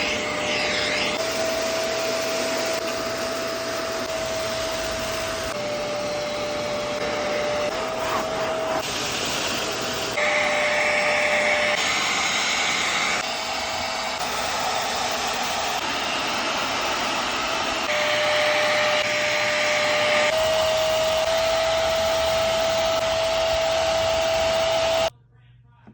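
Hoover CleanSlate portable carpet and upholstery cleaner running on a couch: a steady motor whine over a suction hiss. The pitch shifts slightly and the hiss grows louder at times. It cuts off suddenly about a second before the end.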